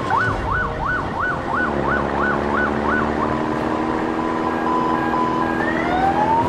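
Police siren sound effect: a fast up-and-down yelp, about three sweeps a second, that settles into a steady tone about three seconds in and turns into a rising wail near the end, over a low steady drone.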